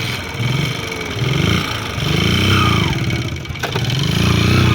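An engine running, its pitch rising and falling several times as it revs up and eases off.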